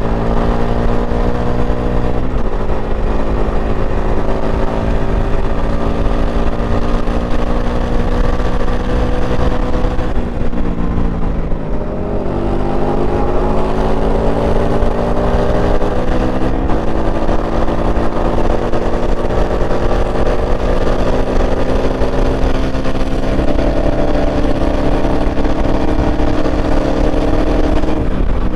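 Indian FTR 1200R's 1203 cc V-twin engine running under way, heard from on the bike. The note climbs with the throttle and drops in steps as it shifts up, about two seconds in and again past the middle. Around ten seconds in it eases off and falls before pulling again, over a steady low wind rumble.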